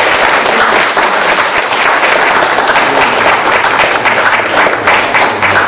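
Audience applause: a roomful of people clapping together at the close of a talk.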